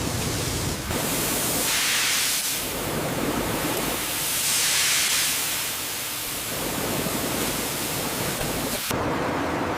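A steady rushing hiss like water spray or steam, swelling into two louder hissing surges about two and five seconds in. The sound changes abruptly near the first second and again near the end.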